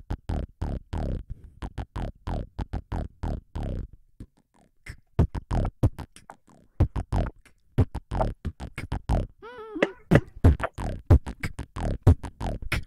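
Beatboxing into a handheld microphone: a fast run of mouth-made kick and hi-hat strokes that breaks off about four seconds in and resumes a second later, with a short wavering pitched vocal note about two-thirds of the way through.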